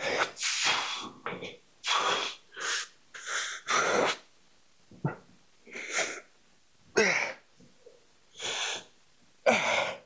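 A man breathing hard with effort through a set of dumbbell lifts: short, sharp hissing breaths and gasps, about one a second, the loudest about seven seconds in and just before the end.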